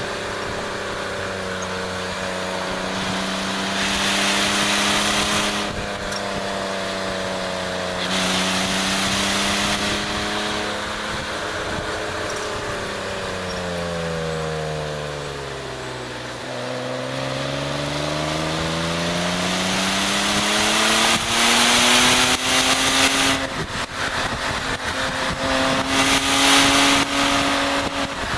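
BMW E36 325is's 2.5-litre straight-six engine running hard on track, its pitch rising and falling with the revs; a little past halfway the revs fall to a low point, then climb steadily again. Several loud bursts of rushing wind noise come and go over the engine.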